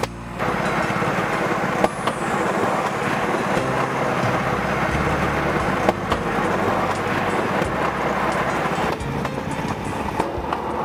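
A rail skate, a small trolley riding a railway track, running steadily along the rails with a constant clattering rumble, broken by a few sharp clicks about two, six and ten seconds in.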